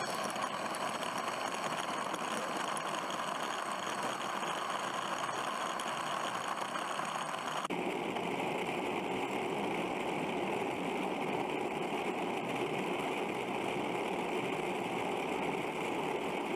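Electric ducted fan of an E-flite F-15 64mm jet running steadily, heard close up from a camera on the airframe, mixed with its small wheels rolling over rough asphalt. The sound changes abruptly about eight seconds in and becomes higher and hissier.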